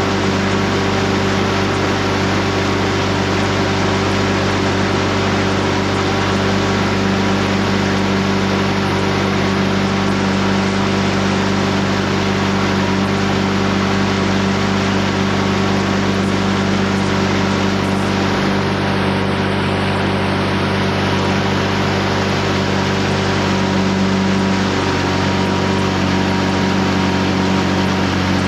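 Motorboat engine running steadily at an even speed, a constant hum with no change in pitch.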